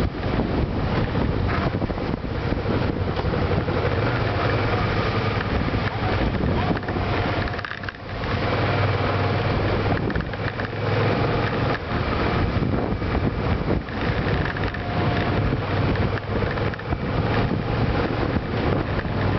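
Suzuki Gladius 400's V-twin engine running as the motorcycle rides along, heavily mixed with wind rushing over the camera microphone mounted above the windscreen. The sound drops briefly about eight seconds in, then comes back.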